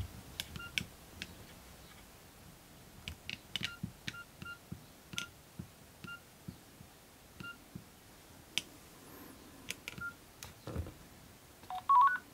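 Keys of a Nokia N70 mobile phone being pressed in an irregular series of clicks, many with a short keypad beep, as the phone's menus are worked between ringtones. Near the end comes a quick run of beeps stepping up in pitch.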